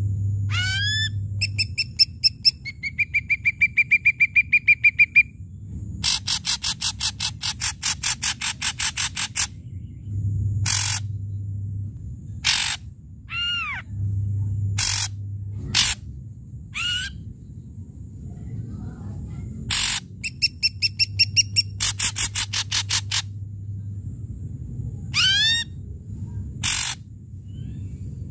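Ashy drongo singing a loud, varied song. It mixes upward-sweeping whistles, rapid rattling trains of harsh notes at about six a second, a held high trill and single sharp notes.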